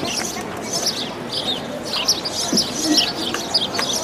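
Many small birds chirping in quick, overlapping calls, over a low murmur of crowd voices.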